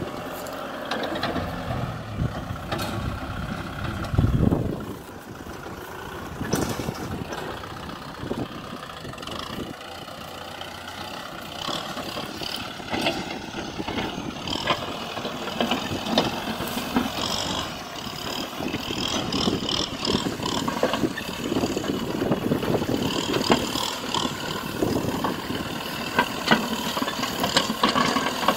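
Kubota M6040SU tractor's four-cylinder diesel engine running as the tractor works a dozer blade through soil, its note rising and falling with load. There is a brief louder surge about four seconds in, and scattered sharp clanks.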